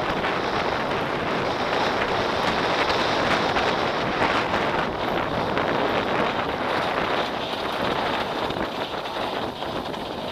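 Wind rushing over the microphone of a mountain bike riding fast down a gravel track, with the crunch and rattle of tyres and bike over loose stones.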